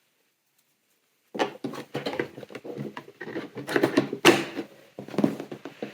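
Cardboard and plastic packaging of a toy car advent calendar being handled: a dense run of rustling, clicks and knocks that starts about a second and a half in, with one sharp snap about four seconds in.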